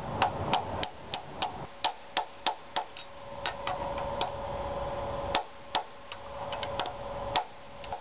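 Hammer tapping on a socket to drive a pilot bushing into the rear of a Chevy small-block 350 V8's crankshaft. The taps are sharp and metallic, each with a brief ring. They come about three a second for the first four seconds, then more sparsely after a short pause.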